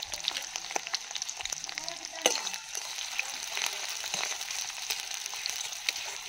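Chopped onions and green chillies sizzling and crackling in hot mustard oil in a metal wok, stirred with a metal spatula. There is a sharp knock about two seconds in.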